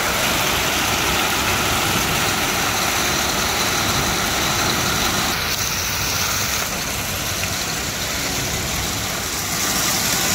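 Heavy hail falling: a dense, steady clatter of hailstones striking the ground and surrounding surfaces.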